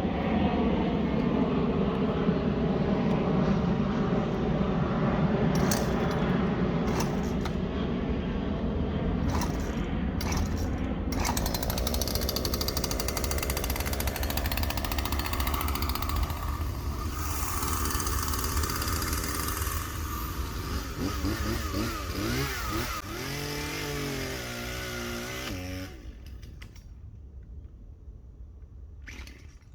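A loud engine drone with slowly shifting pitch that wavers for its last few seconds, then drops away about 26 seconds in.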